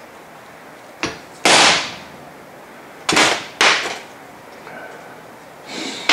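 A hammer striking a steel hollow gasket punch, driving it through a cardboard oil-pan gasket onto a wooden block: a light tap, then four hard, sharp blows, each ringing briefly.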